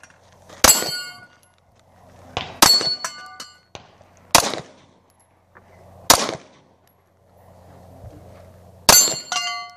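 Handgun shots fired at a Texas star steel target: about six sharp reports spaced one to two seconds apart. Several are followed by the bright ringing clang of a steel plate being hit.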